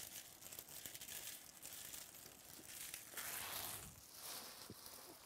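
Trading-card pack wrappers crinkling and being crumpled as cards are handled, with a louder burst of crumpling about three seconds in.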